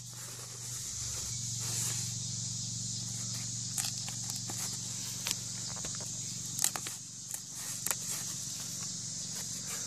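Steady high-pitched insect buzz over a low steady hum, with a few light clicks and rustles from hands handling a cut fiberglass-and-balsa deck panel.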